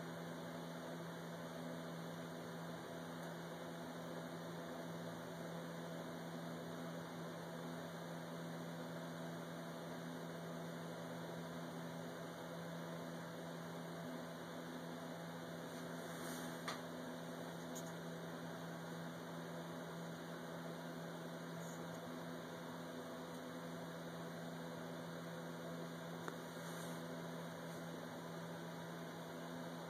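Steady low hum with an even hiss over it, with two brief faint clicks, one a little past the middle and one near the end.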